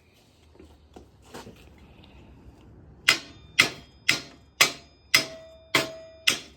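Hammer striking metal: a few light taps, then from about three seconds in a run of seven sharp ringing blows, about two a second.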